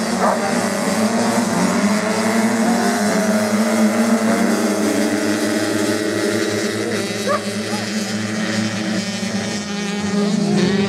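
A pack of motocross bikes' engines revving hard as they pull away from the start line and race off, several engines overlapping with pitches rising and falling.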